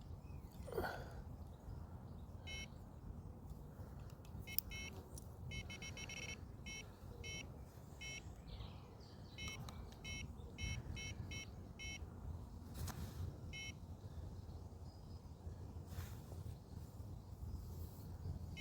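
Electronic carp-fishing bite alarm giving irregular runs of short, high beeps over a low background rumble.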